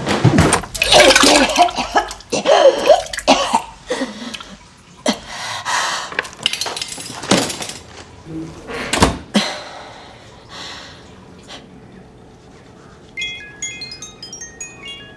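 A woman's hurried, agitated breathing mixed with sharp knocks and clatter as a bathroom cabinet and its bottles are rummaged through. About two seconds before the end, soft chiming music notes begin.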